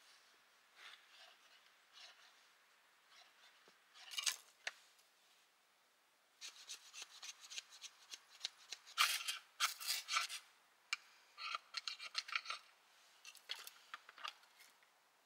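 Dry scraping and rubbing strokes in irregular bursts, a few scattered early and then a dense run through the second half.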